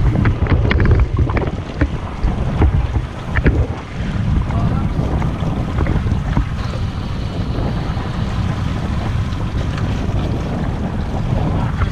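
Wind buffeting the camera microphone with a low rumble, over open-sea water washing and slapping around a small boat's stern. A few short sharp sounds come in the first few seconds.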